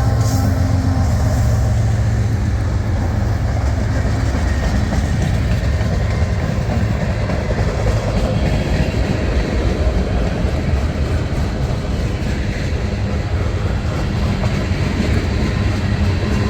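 Freight cars of a long CSX mixed freight train rolling past at close range: a loud, steady rumble and clatter of steel wheels on the rails.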